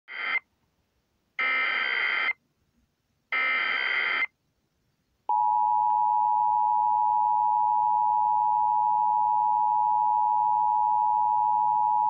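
Emergency Alert System test tones from a Vivitar portable AM/FM radio's speaker. First come three short bursts of the digital header data, the first cut short, about a second apart. Then, from about five seconds in, the steady two-tone attention signal sounds continuously.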